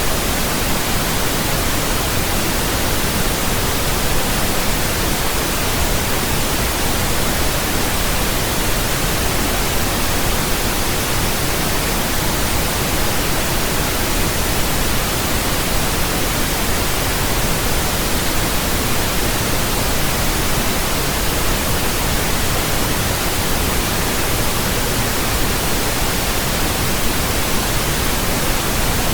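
Steady pink noise: an even, unchanging hiss with more weight in the lows than white noise.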